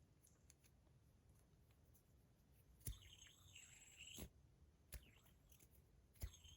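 Faint handling of a metal tri-spinner and its buttons: a few light clicks spaced about a second apart. A faint high-pitched wavering sound follows two of them.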